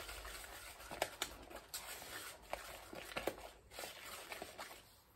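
Wire whisk beating lumpy cornbread batter in a plastic mixing bowl: a soft wet swishing with irregular light clicks of the whisk against the bowl.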